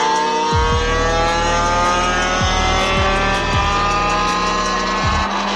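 A car engine accelerating, its pitch rising steadily over several seconds, with music playing over it to a steady beat.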